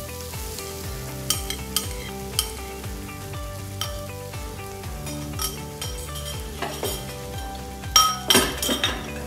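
Beaten egg and coconut milk pour into a hot frying pan and sizzle, while a fork scrapes and clinks against the ceramic bowl several times. A cluster of louder clinks comes near the end.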